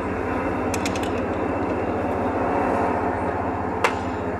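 Steady low mechanical drone, like an engine running nearby, with a quick run of about four light clicks about a second in and one sharp click near the end.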